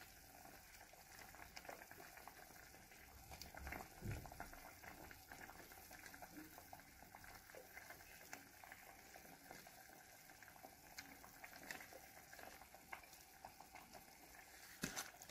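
Green salsa with slices of rellena (blood sausage) simmering in a pot: faint, steady bubbling and small pops, with a soft thump about four seconds in.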